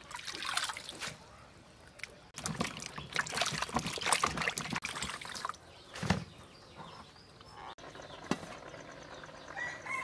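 Water splashing and trickling as wet vegetables are handled in a plastic colander, in irregular bursts, with a dull knock about six seconds in.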